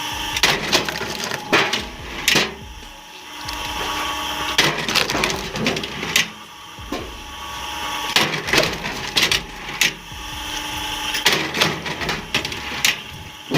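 Wood being processed by a machine: sharp wooden knocks and cracks at irregular intervals, about a dozen in all, over a steady machine hum.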